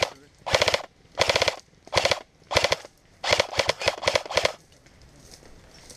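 Airsoft electric rifle (a JG G3 styled as an Ak4) firing short full-auto bursts of a few shots each, about eight bursts in quick succession, stopping about four and a half seconds in.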